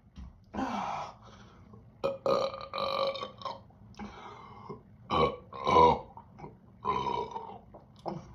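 Repeated loud burps from chugging carbonated Mountain Dew soda: a run of about six or seven belches, some short and some drawn out. The loudest comes about six seconds in.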